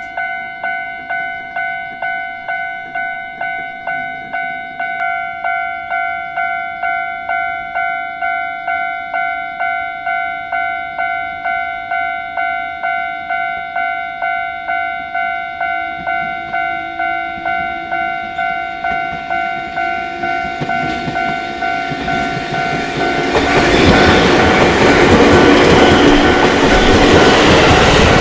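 Japanese level-crossing warning bell ringing in an even, rapid rhythm of a little under two dings a second. Near the end a train's rumble and rush of wheels on rail rises over it as the train passes through the crossing.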